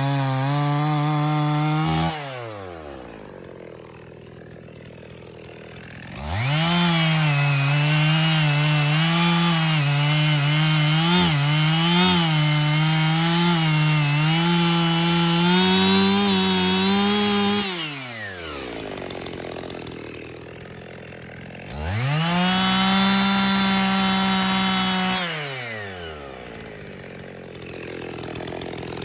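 Two-stroke chainsaw bucking black walnut logs. It runs at full throttle, drops to idle about two seconds in, then revs up for a long cut of about eleven seconds with the pitch wavering under load. It idles again, then gives a shorter burst of about three seconds at full throttle before settling back to idle.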